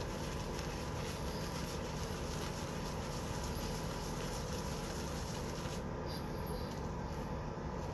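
Steady background hiss with no distinct events: room tone or ambient noise.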